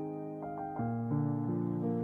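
Slow, gentle piano music: single notes and soft chords come in one after another and ring on, overlapping.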